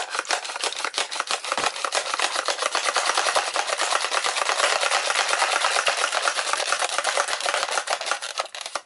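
Plastic slide pump of a toy pressurized water blaster worked back and forth quickly, a fast, even run of plastic strokes. The pumping builds air pressure in the blaster's water tank.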